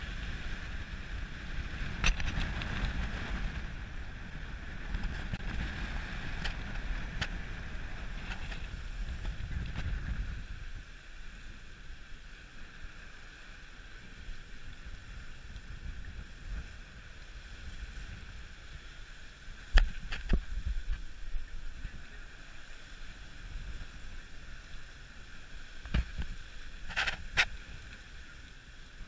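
Sea water rushing and breaking along the hull of a sailing schooner, with wind buffeting the microphone heavily for the first third. A few sharp knocks or splashes stand out, the strongest about twenty seconds in.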